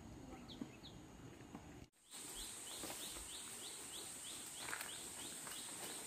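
Small bird calling faintly in a rapid, even series of short high chirps, each sliding down slightly, about three a second. Behind it is a steady high-pitched whine. The sound cuts out completely for a moment about two seconds in.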